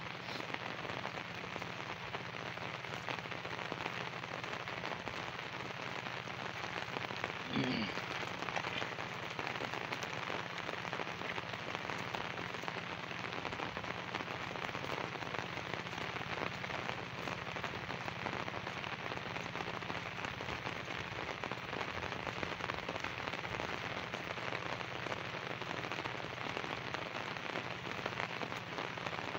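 Steady monsoon rain falling on wet crops and puddles, an even hiss, with a faint low steady hum underneath. A short pitched call cuts through briefly about eight seconds in.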